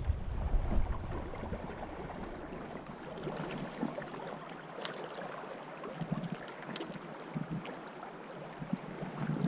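Steady rush of flowing river water in a shallow channel, with wind buffeting the microphone in the first second. Two brief, sharp high sounds come near the middle.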